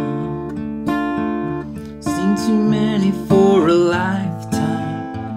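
Acoustic guitar strummed and picked, with chords struck about once a second and left ringing. A man's voice sings a few wavering notes over it about two and three and a half seconds in.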